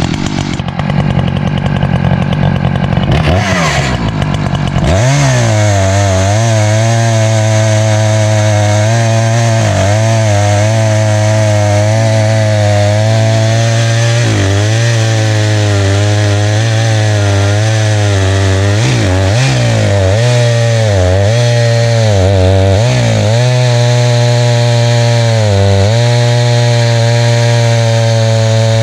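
Echo CS590 Timberwolf two-stroke chainsaw revving up about five seconds in, then running at full throttle ripping a black ash log into slabs, its pitch dipping and recovering several times as the chain loads up in the cut.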